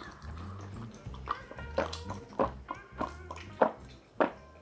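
A person gulping milk from a glass, one swallow about every half second or so, over soft background music.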